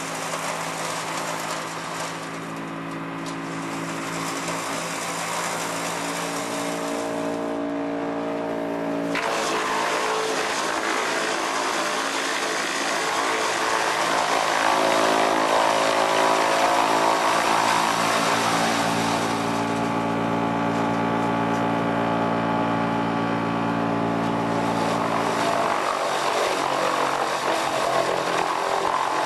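Linddana TP 250 wood chipper running off a tractor's PTO: a steady machine sound of engine and rotor with several held tones. It shifts abruptly about nine seconds in and is loudest in the middle.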